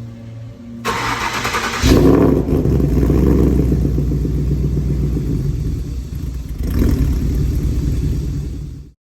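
Ford Coyote 5.0 V8 being started: a burst of starter cranking about a second in, then the engine catches and runs, with a rev around seven seconds in. The sound cuts off suddenly just before the end.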